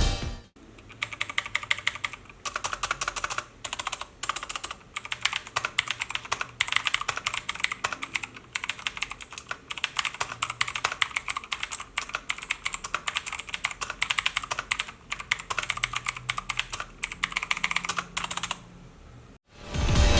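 Typing on a Fantech MK871 mechanical keyboard with clicky Outemu Blue switches: a fast, dense run of key clicks with a few short pauses, stopping about a second and a half before the end.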